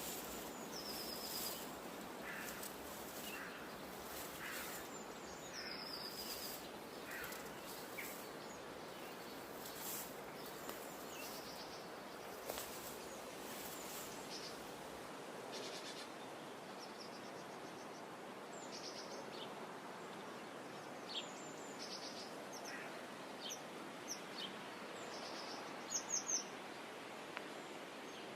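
Birds chirping in short, high, repeated calls over a steady hiss of outdoor background noise. About halfway through the low background rumble drops away, and near the end three loud chirps come close together.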